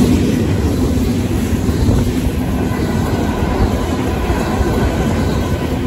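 Freight cars of a Union Pacific mixed freight train rolling steadily past, steel wheels running on the rails. The crossing's WCH mechanical bell is ringing.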